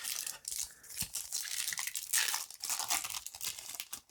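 Foil Yu-Gi-Oh booster pack wrapper crinkling and tearing open, a dense run of crackles and rustles lasting about four seconds.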